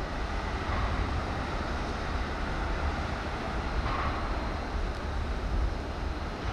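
Wind buffeting the microphone: a gusty low rumble over a steady outdoor hiss.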